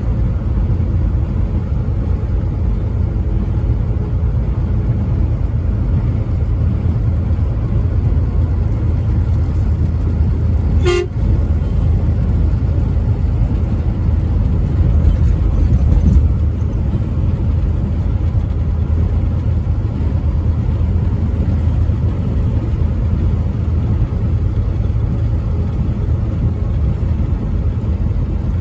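Semi truck driving at highway speed: a steady low rumble of engine and road noise, with a truck horn sounding. A short sharp click-like break comes about 11 seconds in.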